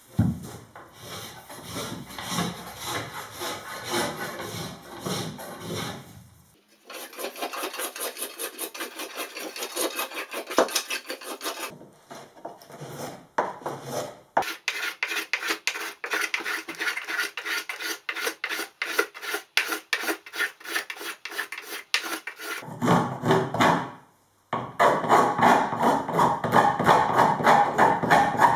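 Hand plane and spokeshave shaving a wooden canoe paddle, sped up threefold, so the scraping strokes come in quick succession. The sound breaks off abruptly several times and starts again with a different tone.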